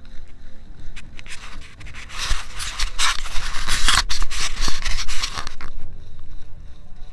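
Action camera being handled: a few seconds of loud scraping and rubbing on the microphone as the camera is turned around, with low thumps beneath it.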